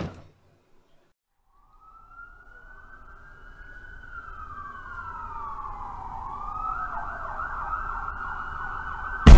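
Police siren fading in and getting steadily louder, a slow rising and falling wail that switches to a fast yelp about two-thirds of the way through. A sudden loud, deep hit lands at the very end.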